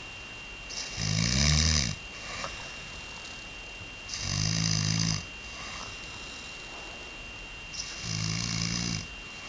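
A man snoring in his sleep: three loud snores about three to four seconds apart, each lasting about a second.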